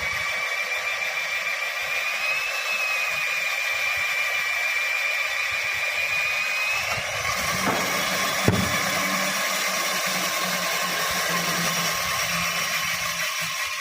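Electric power tool running steadily under load, a high motor whine that wavers slightly in pitch, with one sharp knock about eight and a half seconds in.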